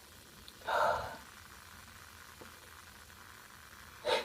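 A woman's short breathy exhale, like a sigh, about a second in, after a stifled sneeze. It is followed by quiet breathing, and near the end a short, sharp stifled sneeze begins.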